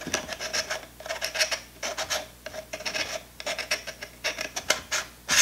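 A 46 mm ND1000 screw-in filter being twisted onto a threaded lens adapter: short, irregular strokes of threads rubbing and scraping.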